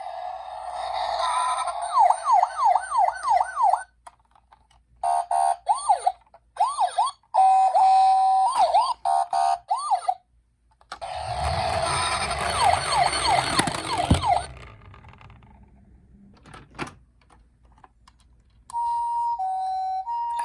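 Toy ambulance and police car electronic sirens sounding one after another, cut from clip to clip: a fast rising-and-falling wail, then a two-note hi-lo tone, then another wail over the rumble of toy wheels rolling down a slope that ends with a knock, and the two-note tone again near the end.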